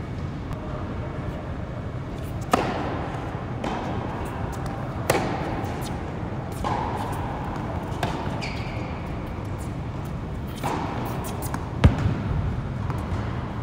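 Tennis rally on an indoor court: a ball struck back and forth by racquets, a sharp pop every two to three seconds, each hit echoing in the large hall. The loudest hit comes near the end.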